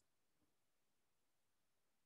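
Near silence: a pause between spoken sentences.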